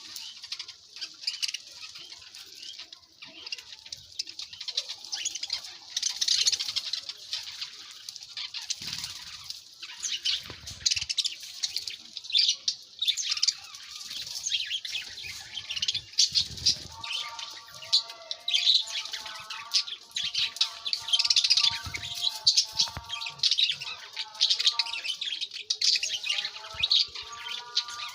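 A flock of small birds chirping busily and continuously, with occasional wing flutters and soft thuds. In the second half a lower, tuneful sound joins the chirping.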